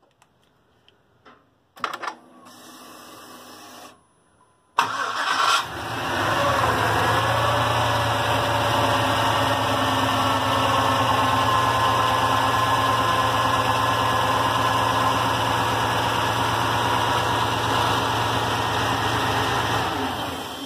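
GM LS V8 started by remote start: a short steady electric hum of the fuel pump priming, then about five seconds in the engine cranks and fires with a brief flare and settles into a steady idle. It is shut off near the end.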